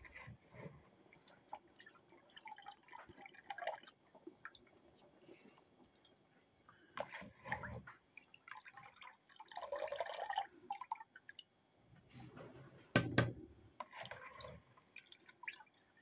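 Chicken stock boiling in a wok, with drips and splashes coming in short bursts as soaked basmati rice is tipped in; the loudest splash comes about three-quarters of the way through.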